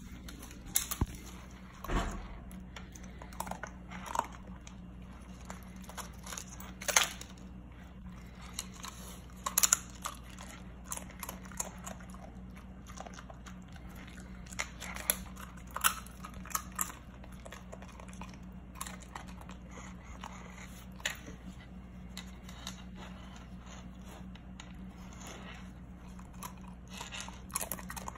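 Husky crunching and chewing tortilla chips, sharp irregular crunches at uneven intervals, over a steady low hum.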